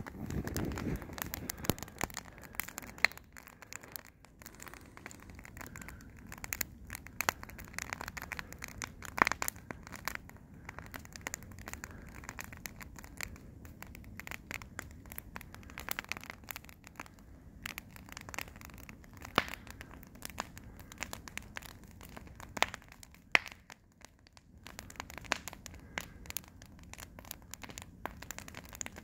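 Wood campfire crackling, with irregular sharp pops and snaps as sparks fly up.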